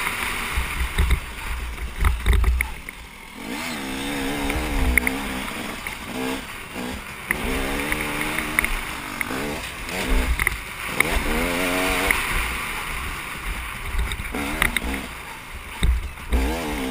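Dirt bike engine under the rider, its revs climbing and dropping again and again with throttle and gear changes, over bursts of low wind rumble on the microphone.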